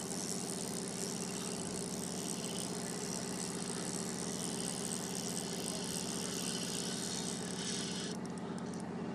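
A fishing boat's engine machinery running steadily: a low, even hum with a high hiss above it, the hiss thinning out near the end.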